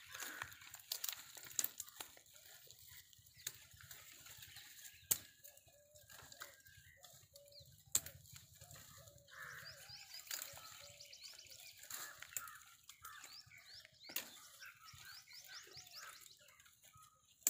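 Dry, thorny branches rustling and snapping as they are pulled and broken by hand, with sharp cracks of twigs breaking now and then, the loudest about five and eight seconds in. Faint bird calls and short chirps sound in the background.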